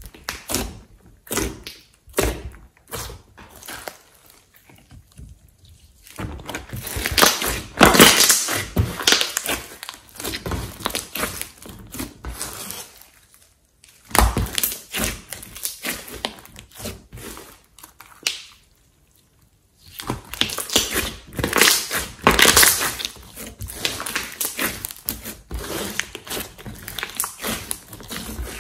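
Hands squeezing, pressing and stretching a large mass of slime, making dense sticky squishing, popping and crackling sounds in runs, broken by two short pauses.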